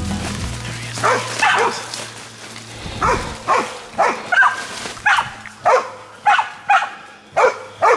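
Pig-hunting bail dog barking steadily, roughly two barks a second: the sound of the dog holding a pig at bay.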